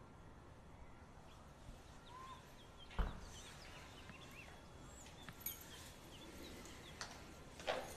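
A front door shuts with a single sharp thud about three seconds in, with a couple of lighter knocks near the end. Birds chirp faintly throughout.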